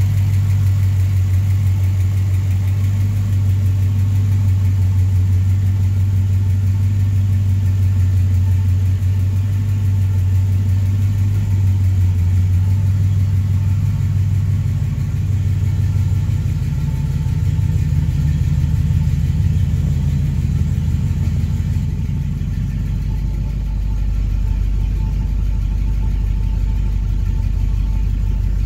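A 1965 Mustang's 289 V8, running on Fitech Go Street EFI, idles steadily. Its low hum shifts a little about halfway through. In the last few seconds it sounds duller, heard from inside the car.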